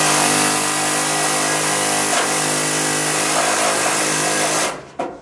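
Pneumatic air hammer with a screwdriver bit, run in one loud, steady burst of rapid hammering against a rust-fused Phillips screw in a door hinge, trying to break it loose. It stops a little before the end, followed by one short blip.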